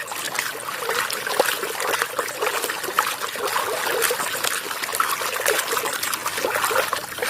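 Water trickling and splashing over a muddy toy as it is washed, a steady running-water sound with small crackles and clicks throughout.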